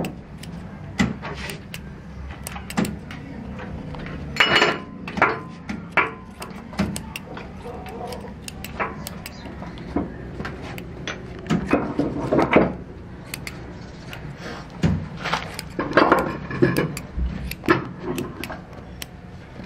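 Scissors snipping excess rubber flash off moulded motorcycle wheel hub rubbers by hand. Irregular short snips and clicks, with a few louder cuts now and then.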